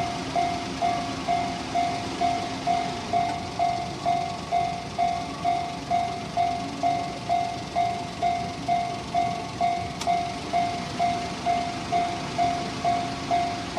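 Japanese railway level crossing's electronic warning bell ringing steadily at about two strikes a second, the alarm that sounds while the crossing is active for an approaching train.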